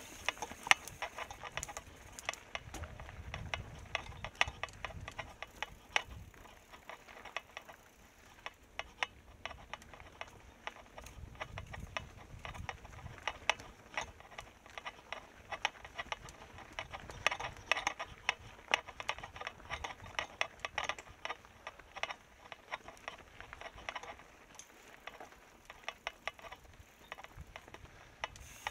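Mountain bike coasting down a rocky descent, rattling with dense, irregular clicks and knocks as it rides over the rock.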